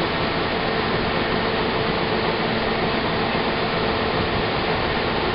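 Combine harvester running with its unloading auger on, shelled corn pouring into a grain truck: a steady mechanical drone with a rushing hiss of grain.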